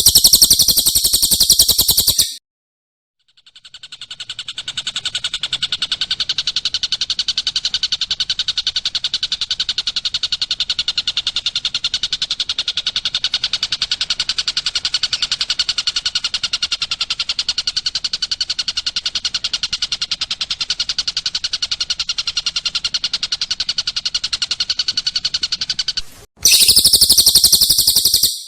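Recorded songbird song played as a training track. A very loud, shrill, high trill lasts about two seconds, then breaks off. After a short pause a long, steady, rapid trill runs for over twenty seconds, and the shrill trill returns near the end.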